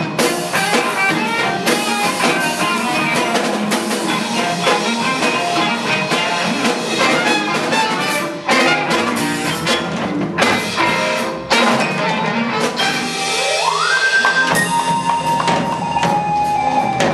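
Live band playing: drum kit, electric guitars, trumpet, violin and upright bass. About three-quarters of the way through, a note slides up and is held.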